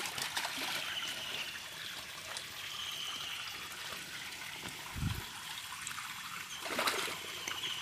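Steady trickle of a thin stream of water running into a shallow, muddy pond, with a low thud about five seconds in and a short splash of hands in the muddy water near the end.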